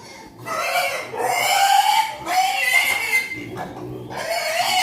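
Piglets squealing loudly in a few long, wavering squeals with short breaks between them.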